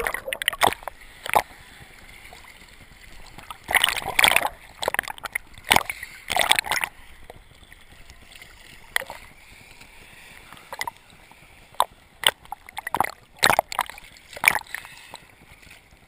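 Ocean surf splashing and sloshing over a camera at the water line as it dips under and comes back up, in irregular splashes over a low steady wash.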